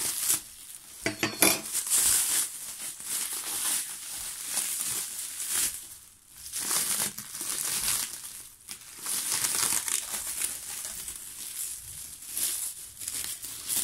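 Bubble wrap and clear plastic film crinkling and rustling as they are pulled off by hand and unwrapped. The rustle swells and dips throughout, with a few sharper crackles about a second in.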